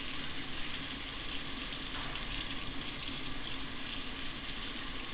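Hot-water tap running steadily into a sink, a continuous even rush of water.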